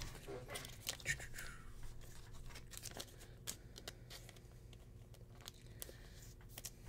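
Faint handling of trading cards and their foil pack wrappers: scattered light clicks, rustles and a short crinkle about a second in.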